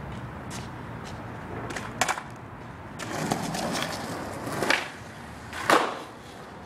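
Skateboard wheels rolling over concrete, with three sharp clacks of the board, the loudest near the end.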